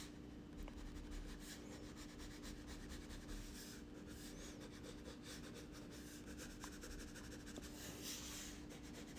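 Black Crayola crayon scratching across drawing paper in many quick, short strokes as fur is hatched in. The sound is faint, with a steady hum underneath.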